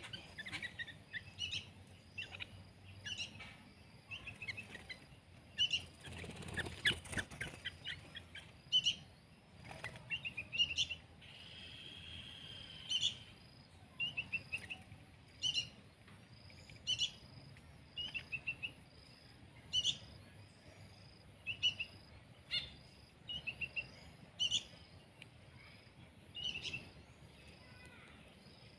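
A young songbird giving short, high chirps again and again, every second or two, with a brief rustle of movement about six to seven seconds in.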